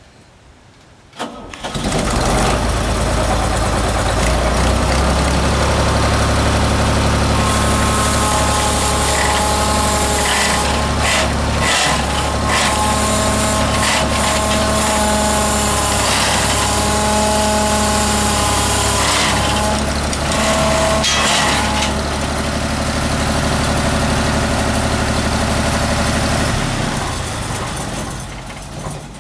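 Engine of an old tracked utility machine being started: it catches about a second in, then runs steadily with whining tones that rise and fall over it, and fades away near the end.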